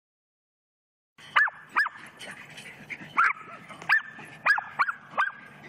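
Cairn terriers yapping while they play, a quick run of about seven short high-pitched barks that begins just over a second in.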